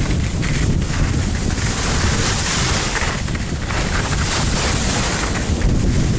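Wind buffeting the microphone of a camera carried by a downhill skier, with the hiss of skis sliding over snow. The hiss swells and eases.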